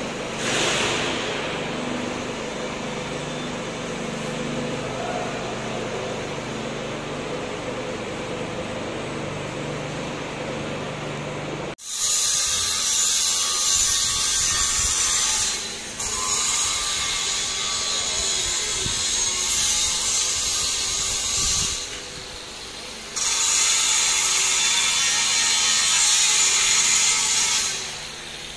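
A steady hum of electric ceiling fans running in a room. About twelve seconds in, it cuts abruptly to a loud high hiss that stops and starts three times.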